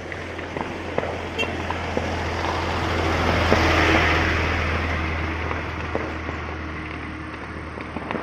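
A car passes, its noise swelling to a peak about four seconds in and then fading. Scattered sharp pops of burning bamboo, like firecrackers, come through the car noise.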